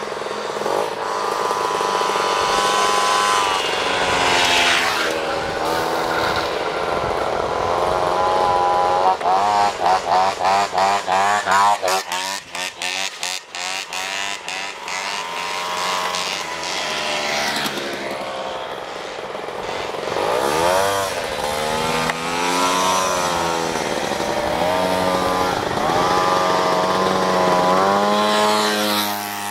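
Several small two-stroke moped engines running and passing by, their pitch rising and falling as they rev. For a few seconds about a third of the way in, the sound turns choppy and stuttering.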